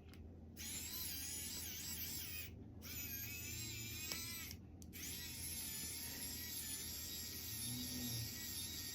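A small electric motor whirring in three stretches with two short breaks, a hissy sound with a whine that wavers in pitch.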